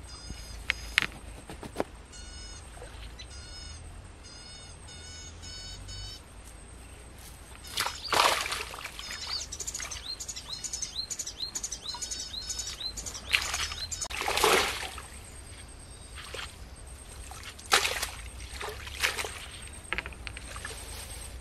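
Small birds chirping in quick, repeated high phrases, with several short bursts of splashing as a freshly caught rohu is put into a mesh net bag held in the water.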